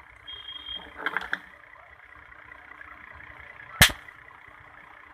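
A single sharp, loud crack, typical of a charged 400-volt capacitor being shorted and discharging in a spark. It is preceded by a few small clicks and a brief high tone.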